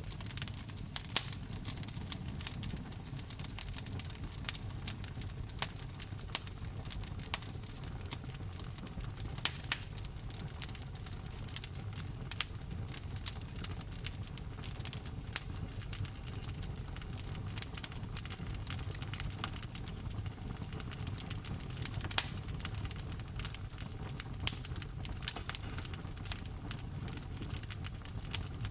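Wood fire crackling: irregular sharp pops and snaps, several a second, over a steady low rumble of burning logs.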